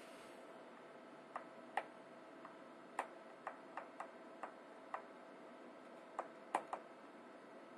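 Screwdriver clicking against the bottom-cover screws of an Intel NUC mini PC as they are loosened: about a dozen light, irregular clicks, the loudest about six and a half seconds in, over a faint steady hum.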